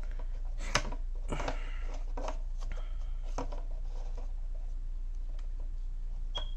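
JLab Go Air Pop plastic charging case and earbuds being handled: a few separate sharp clicks and taps of plastic as the lid is worked and the earbuds are touched, the sharpest about a second in. A steady low hum runs underneath.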